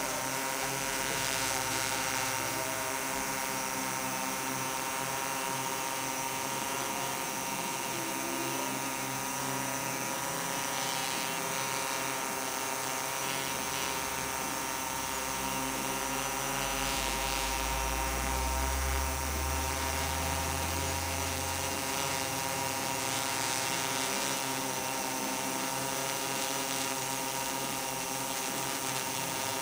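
MikroKopter L4-ME quadcopter's four electric motors and propellers giving a steady, multi-tone buzz as it hovers holding position on GPS. A low rumble runs underneath for several seconds midway.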